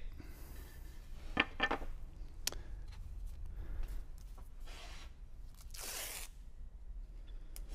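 Double-sided tape being pulled off its roll, with one short ripping pull about six seconds in and a few small handling clicks and rustles before it.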